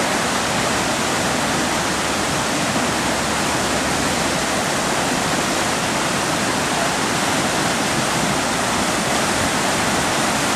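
Steady rush of whitewater pouring over the concrete drops of an artificial slalom canoe course and churning in the rapids below.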